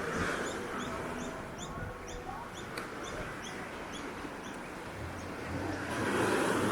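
A bird chirping repeatedly, short high chirps at about three a second, which stop about five seconds in. A broad rush of noise swells near the end.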